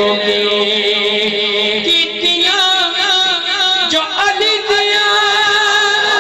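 A man singing a Punjabi naat unaccompanied, drawing out long held notes that bend and waver in pitch.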